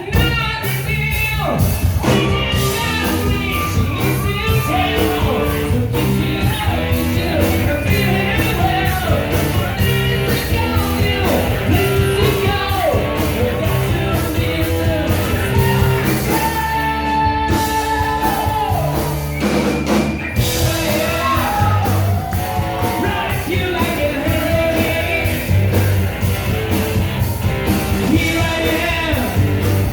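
Rock music with a lead singer over a steady drum beat, playing loudly.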